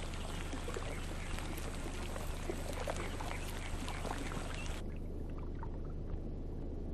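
Water trickling and bubbling, with many small drips and plops, over a steady low hum. About five seconds in, the higher part of the sound cuts away, leaving a dull, muffled, underwater-like sound.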